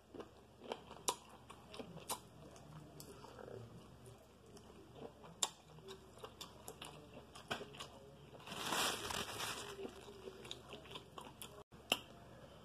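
A person chewing shrimp close to the microphone: faint, scattered wet mouth clicks and smacks, with a longer rustling noise about eight and a half seconds in.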